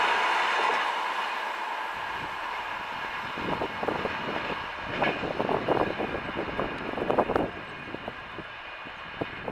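A train of LHB passenger coaches rolls past at speed, and its rushing noise fades away over the first two seconds as the last coach draws off. Uneven rumbling bursts follow for a few seconds.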